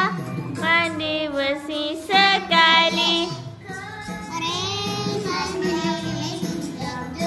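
A children's song: a high child's voice singing phrase after phrase over steady backing music.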